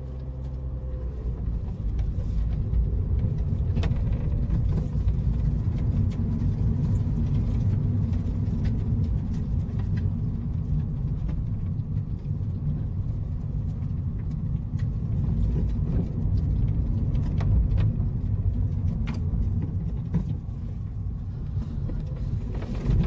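Car being driven, heard from inside the cabin: a steady low rumble of engine and road noise that grows louder over the first couple of seconds as the car picks up speed, with a few faint clicks.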